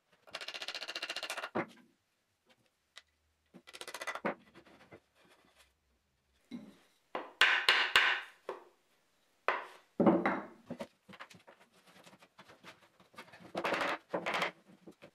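Wooden mallet tapping glued beech tabletop segments together on their biscuit joints, in several short bouts of knocks. Between them, the wooden pieces scrape and clatter on the workbench as they are shifted into place.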